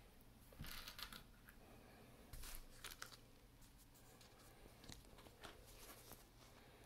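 Faint handling noise of dry tri-colour rotini and its cardboard pasta box: two short rustles in the first three seconds, then a few light clicks as the dry pasta pieces are set down on a woven placemat.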